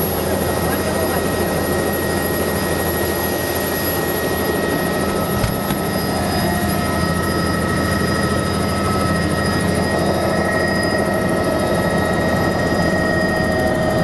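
Helicopter engine and rotor running on the ground, heard from inside the cabin: rotor chop under a steady high whine.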